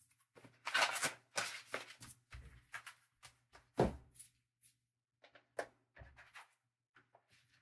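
Faint rustling, scraping and crinkling of a cardboard mailer box and its paper packing being handled and opened, in short irregular bursts, with one soft thump about four seconds in.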